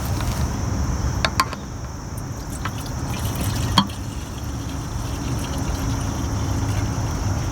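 Fresh gasoline being poured into a push mower's fuel tank, with a couple of light clicks, one just over a second in and another near four seconds.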